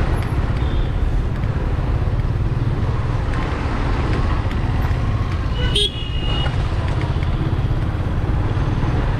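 Motorcycle riding through slow city traffic: steady engine and wind noise on the helmet microphone. A vehicle horn toots briefly about six seconds in.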